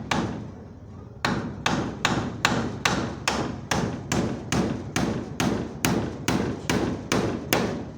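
Hammer blows driving nails into timber. After a pause, a steady run of about sixteen strikes comes at roughly two and a half a second and stops near the end.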